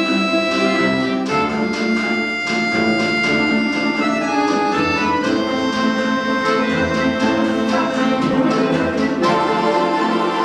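Ensemble of Russian folk instruments playing an instrumental piece: sustained chords under quick repeated notes.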